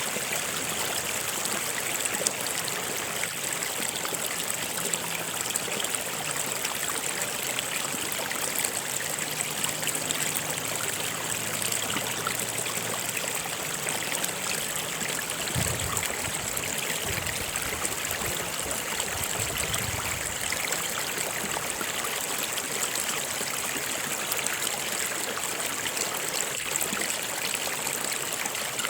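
A stream running steadily, an even rushing and trickling of water, with a few brief low rumbles a little past the middle.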